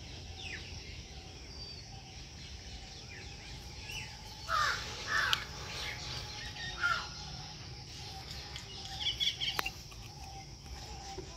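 Birds calling outdoors: a few short calls around the middle, another shortly after, and more near the end, with one sharp click among the last ones.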